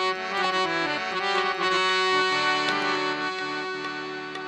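Harmonium playing held reed chords and notes, stepping to new pitches a few times, with no singing.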